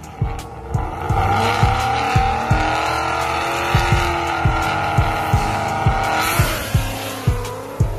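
Supercharged V8 street cars on the line, a held high engine note building, then a louder burst of engine and tire noise about six and a half seconds in as they launch. Music with a steady kick-drum beat plays over it.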